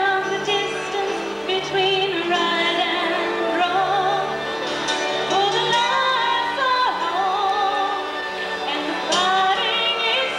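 A young woman singing a solo into a handheld microphone over an instrumental accompaniment, her held notes wavering with vibrato.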